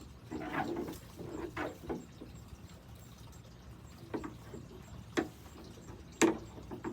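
Scattered light knocks, clunks and clatter of gear being handled and packed away, with a sharper knock about six seconds in, the loudest.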